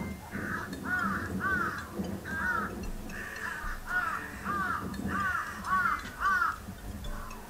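Crows cawing over and over, short harsh calls in quick runs of two or three a second, played back through a TV's soundbar.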